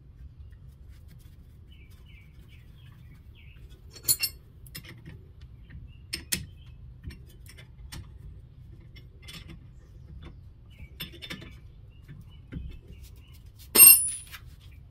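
Scattered metallic clinks and clicks of hand tools and parts while refitting a car's front brake caliper, about five in all. The loudest comes near the end with a brief high metallic ring.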